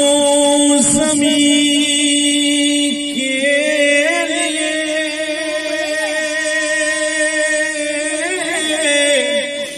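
A man singing a naat into a microphone, holding one long steady note with small wavering melodic turns about three seconds in and again near the end, then breaking off.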